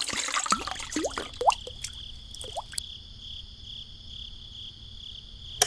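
Last trickle and drips of water poured from a small metal bucket into a soda can, giving short rising plinks for the first few seconds. Then a steady insect-like chirring, with one sharp click just before the end.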